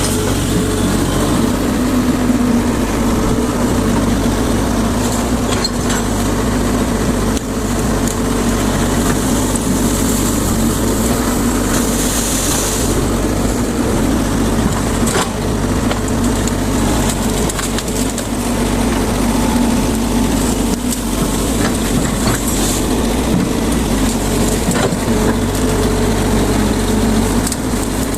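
Excavator's diesel engine running steadily under work, with scattered cracks and crunches of branches and brush being broken as the machine clears vegetation. A brief hiss about twelve seconds in.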